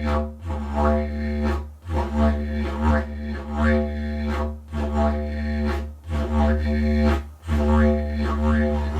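Didgeridoo played in a rhythmic pattern: a steady low drone pulsed in loudness by the player's mouth and tongue, with repeated upward sweeps in the overtones. The drone briefly drops out about two, six and seven and a half seconds in.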